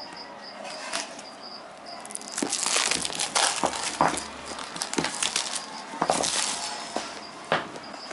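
Clear plastic wrapping crinkling and tearing as it is peeled off a cardboard phone box, loudest from about two seconds in, with sharp crackles. A cricket chirps in short regular pulses during the first two seconds and again near the end.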